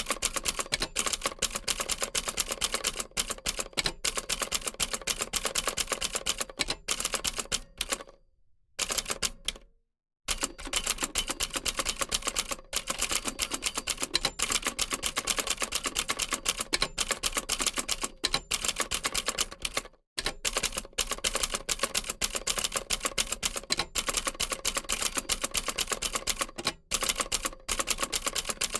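Old typewriter typing away: a rapid, uneven run of key strikes, with a break of about two seconds a third of the way in and a short pause about two-thirds of the way through.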